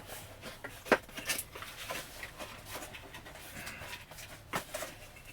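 Light handling sounds of a boxed Funko Pop being turned over: soft rustles and a few small clicks and taps, the sharpest about a second in.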